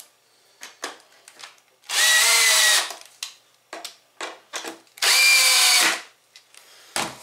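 Power drill driving screws into a pallet-wood post: two bursts of about a second each, the motor whine holding steady under load. Small knocks and taps from handling the wood and drill come between them.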